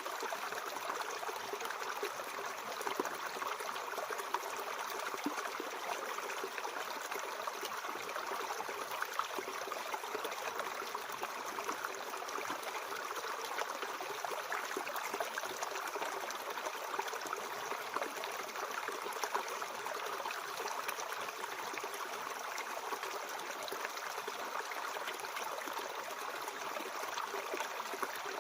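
Mountain stream running steadily, an even babble and rush of water that does not change.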